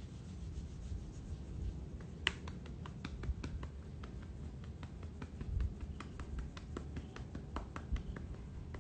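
Faint handling noise: a low rumble with many small, irregular clicks and rubs, starting with a sharper click about two seconds in.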